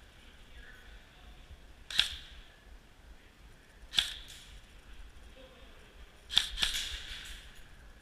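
Airsoft gun firing single shots, four sharp cracks with a short ringing tail: one about two seconds in, another about two seconds later, and a quick pair near the end.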